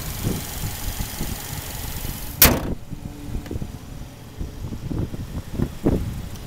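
A car hood slammed shut once, a single loud bang about two and a half seconds in. Before it there is a steady hiss and rumble from the open engine bay, much fainter once the hood is down, with a few softer knocks near the end.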